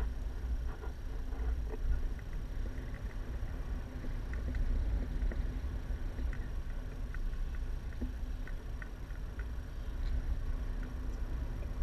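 Wind rushing over an action camera's microphone in paraglider flight: a steady low rumble with faint short high blips scattered through it.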